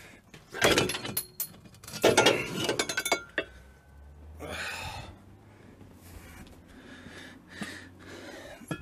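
Metal clanking and clinking as the front shock absorber and its turret are worked up and out of the Land Rover Discovery's spring tower. There are two loud clattering bouts, about a second and two seconds in, then quieter handling noises.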